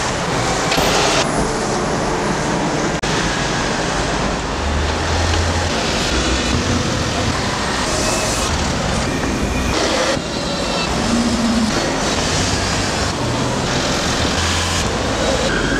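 Steady road traffic noise of passing motor vehicles, with abrupt cuts about three and ten seconds in.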